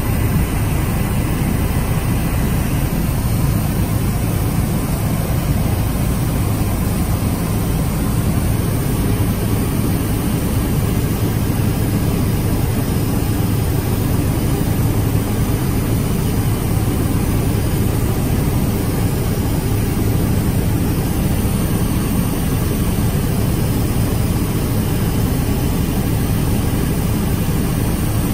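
Helicopter engine and rotor heard from inside the cabin in steady cruising flight: a loud, even, low drone that doesn't change.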